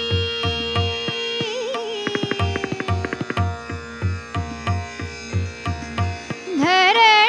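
Hindustani classical vocal in Raag Adana: a woman holds a long sung note and ends it with a quick ornamented turn, over a steady tabla beat of about two strokes a second. The voice then drops out for a few seconds, leaving the drum and a fast run of instrumental notes, and comes back in with a rising glide near the end.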